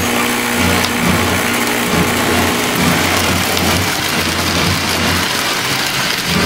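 Model electric trains running on tubular three-rail track: a steady rumbling clatter of metal wheels on the rails with a low hum from the motors.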